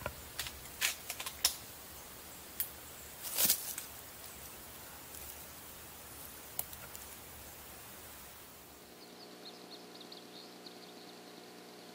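Quiet woodland with a few sharp light clicks and snaps in the first four seconds, the loudest about three and a half seconds in. From about nine seconds in the sound changes to a steady electrical hum with faint high insect buzzing, as recorded by a rifle-scope camera.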